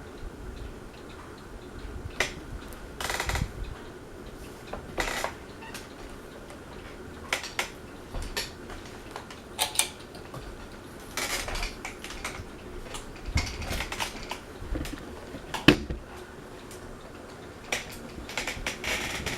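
Encon ceiling fan running with a faint steady hum, under a scatter of irregular clicks, clinks and short knocks, the loudest about sixteen seconds in.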